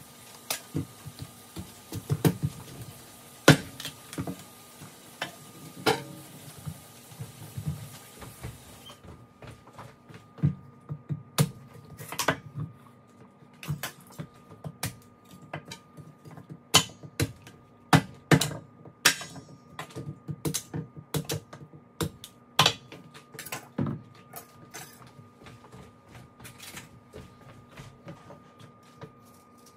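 Irregular knocks and clicks of hands-on food preparation: knife, vegetables and utensils handled on a kitchen counter, with a faint steady hum underneath.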